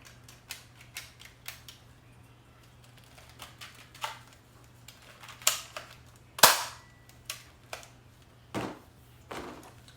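Plastic toy parts and packaging being handled and set down: a scattered series of light clicks and knocks, with a sharper knock about six and a half seconds in.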